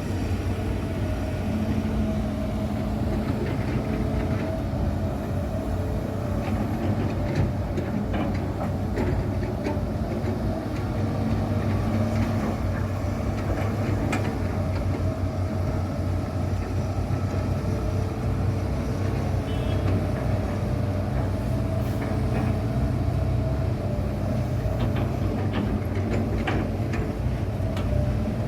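Heavy diesel machinery running steadily: an excavator working beside a dump truck, with a constant low engine hum and a few scattered light knocks.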